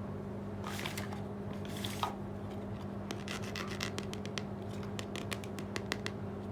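Small plastic toy pieces being handled: two short scrapes about one and two seconds in, then a run of light clicks. A steady low hum runs underneath.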